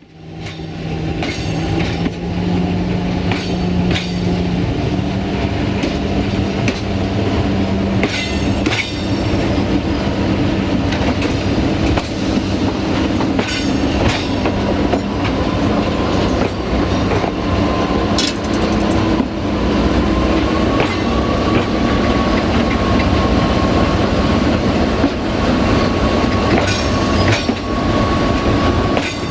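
Diesel-hydraulic shunting locomotive (CFR LDH class) running steadily as it rolls along the track, its engine a constant drone, with a thin whine joining about halfway through and wheels clicking now and then over rail joints.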